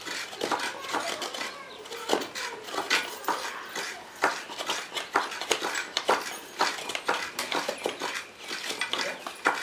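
Fresh coconut half scraped by hand against a coconut grater: a quick, irregular run of scratchy scraping strokes as the white flesh is shredded.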